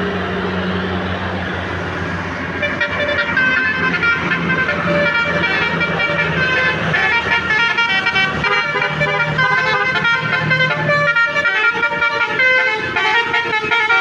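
A big tour bus's diesel engine runs at first. About three seconds in, a telolet basuri musical bus horn starts playing a quick tune of many short notes, and keeps playing over the engine.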